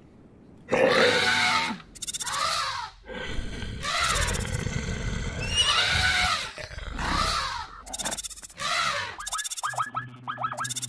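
A string of horse whinnies as sound effects, about six separate calls, each rising and falling in pitch, with a low rumble beneath the middle ones. Near the end a fast run of short rising chirps over a steady low tone takes over.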